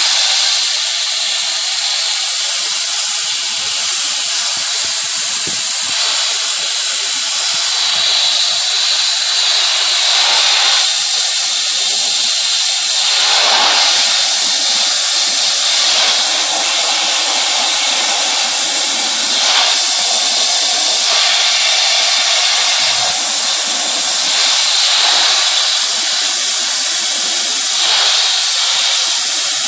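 Pressure-washer spray from a wand nozzle held close to vinyl siding: a loud, steady hiss of water jetting against the panels, blasting tar-like shotgun spore spots off the siding. The hiss shifts a little in level as the spray moves over the surface.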